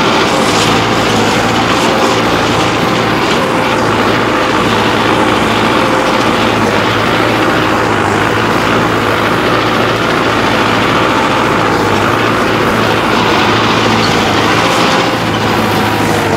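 Mahindra Arjun Novo 605 DI tractor's four-cylinder diesel engine, fitted with a modified injection pump, running steadily under load in four-wheel drive while working hard ground, held at about 2000 rpm.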